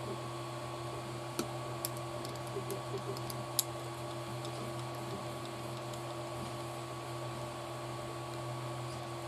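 A few light clicks and taps of small model-kit parts and a tool being handled while a bolt and flange nut are fitted, clustered in the first few seconds, over a steady electrical hum.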